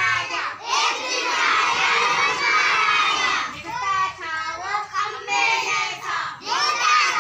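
A large group of children chanting a rhyme together in loud, shouted unison, with clearer sung lines from fewer voices in the middle.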